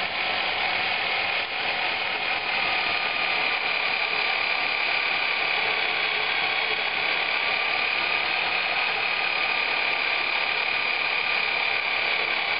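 Hole saw in a tube notcher cutting a notch into 1¾-inch, 0.120-wall steel tubing: a steady, high-pitched whine held at one pitch.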